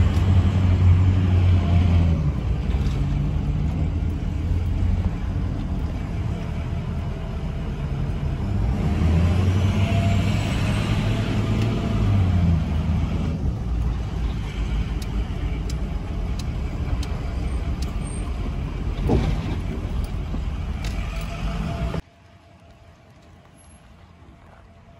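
Pickup truck engine running while driving, heard from inside the cab with road noise, the engine swelling louder twice: at the start and again around ten seconds in. Near the end the sound cuts to a much quieter outdoor background.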